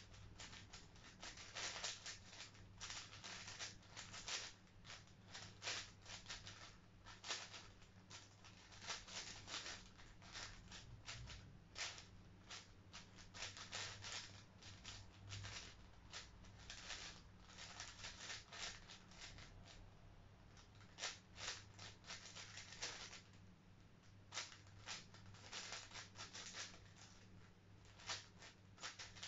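5x5 twisty puzzle cube being turned rapidly by hand: its plastic layers click and clack faintly in quick, irregular runs, with brief pauses between bursts of turns.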